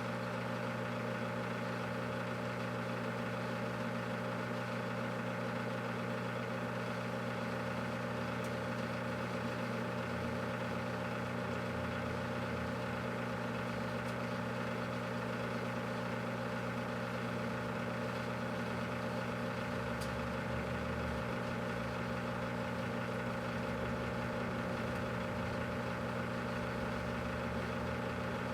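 Microwave oven running with a steady electrical hum while heating a whole watermelon.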